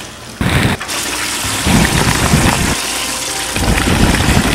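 Water bubbling and sloshing close to the microphone, in surges, in a tub of live crayfish.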